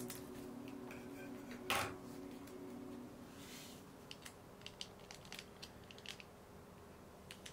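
Faint light ticks and taps as a paper stick packet of powdered gelatin is flicked and tapped out over a glass bowl, with one sharper click a little under two seconds in. Soft background music fades out in the first couple of seconds.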